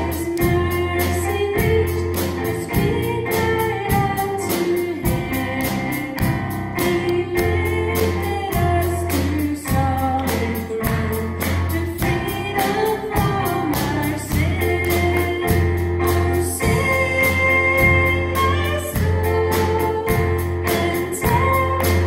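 Contemporary worship song: singing over keyboard, sustained bass notes and a steady drum beat.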